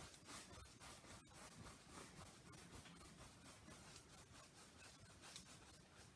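Faint, near-silent swishing of a flat paintbrush stroked repeatedly across a canvas, working thinned white acrylic paint.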